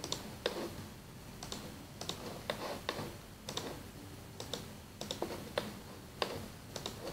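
Computer mouse clicking at irregular intervals, some clicks in quick pairs, as sketch elements are selected one by one.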